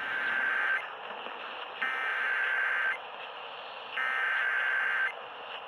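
Emergency Alert System SAME header: three buzzing bursts of digital data tones, each about a second long and about a second apart, heard over a steady radio hiss.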